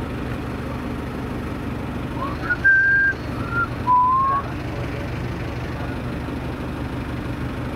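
A few short whistled notes, a couple of them gliding upward, about two to four seconds in, over the steady low hum of an idling vehicle engine.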